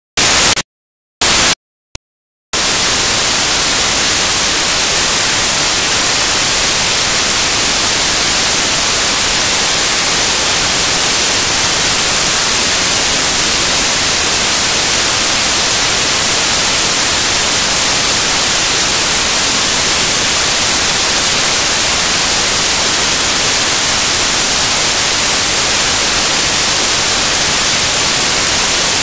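Loud, steady static hiss, brightest in the highs, the sound of a corrupted digital audio stream. In the first couple of seconds it comes in a few short bursts cut off by dead silence, then runs on unbroken.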